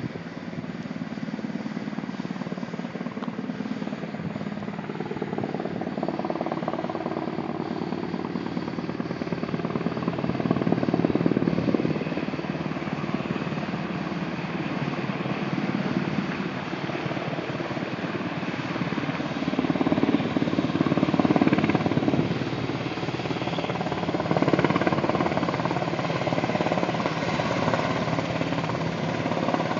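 Sikorsky UH-60 Black Hawk helicopter approaching in flight, its rotor beating steadily over the turbine noise. It swells louder about ten seconds in and again around twenty seconds in as it comes closer.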